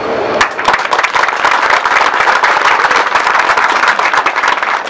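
Crowd applauding, many hands clapping together; it starts about half a second in, swells, and thins to a few scattered claps near the end.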